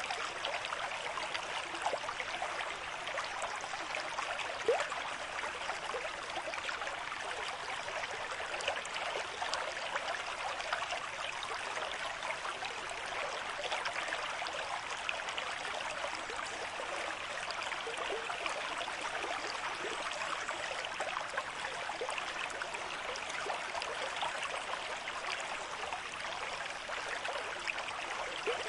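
River stream with moderate flow running over rocks: a steady rush of water with many small splashes and gurgles throughout.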